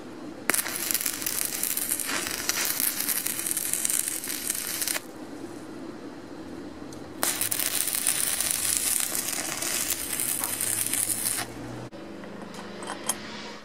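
Stick (arc) welding on steel plate: two runs of steady crackling arc sizzle, each about four and a half seconds, with a short pause between them. Near the end the sound drops to a quieter background with a single click.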